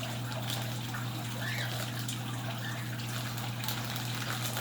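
A steady low hum with a hiss behind it, and faint crackles of a wrapped package being handled and worked open.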